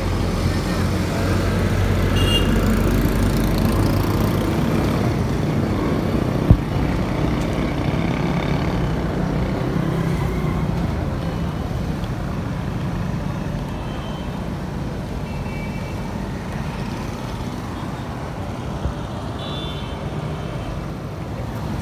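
Road traffic noise: a steady rumble of passing motor vehicles, heavier over the first several seconds and easing later, with a single sharp knock about six seconds in.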